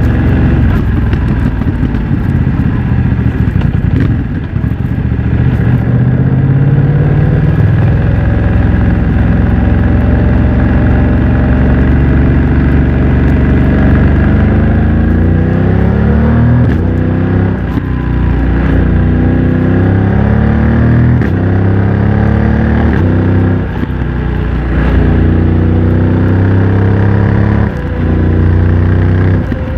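BMW F900 XR's parallel-twin engine breathing through a MIVV X-M1 aftermarket exhaust under way. In the second half the pitch climbs and drops sharply again and again as the bike accelerates and upshifts through the gears with its quickshifter.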